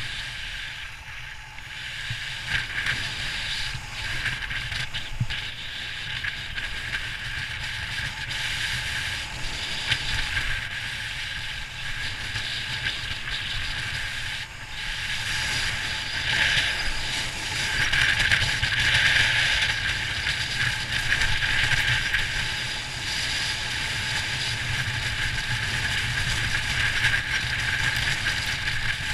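Snowboard sliding and scraping over packed snow: a steady rushing hiss that swells and eases as the rider turns, with wind rumbling on the microphone.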